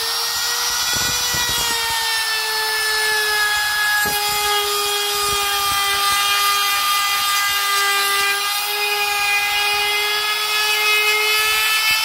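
Compact trim router running at full speed while cutting a door-hinge mortise in wood through a plastic hinge-routing jig: a steady high motor whine whose pitch sags a little as the bit takes the cut.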